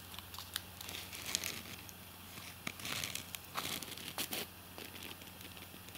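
Fingers handling the peel-back paper label on a smoke grenade canister, crinkling and rustling as it is unrolled, with scattered small clicks, over a faint low hum.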